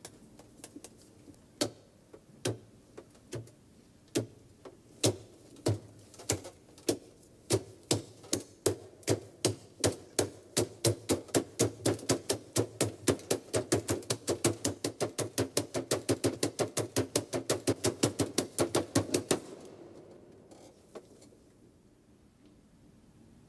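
Playing cards slapped down on a wooden table as rhythmic percussion: sparse sharp slaps about a second apart that gradually speed up into a fast, even beat of several slaps a second, then stop abruptly.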